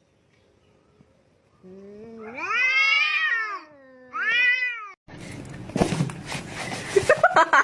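A cat yowling twice: a long drawn-out call that rises and then falls, then a shorter one. After that comes a loud, noisy stretch with sharp knocks.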